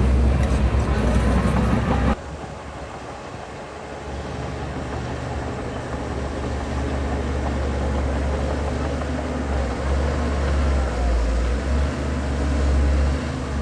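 Diesel engine of heavy construction machinery running with a deep low rumble; the sound drops suddenly about two seconds in, then slowly grows louder again.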